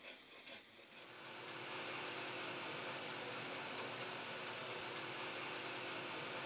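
Band saw running with a steady hum and high whine, coming in about a second in after a quiet start.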